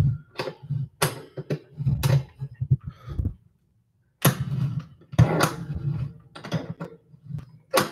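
Handling noise from a microphone on a boom arm being repositioned by hand: irregular knocks, clicks and rubs picked up through the mic itself, with heavy low thumps. About three and a half seconds in, the sound cuts out completely for nearly a second. The mic will not stay where it is set.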